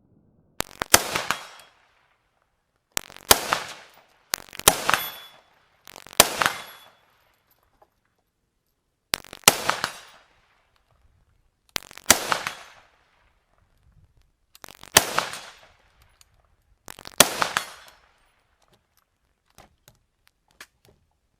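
Rifle fired eight times at an unhurried pace, each shot a sharp crack trailing off into a short echo.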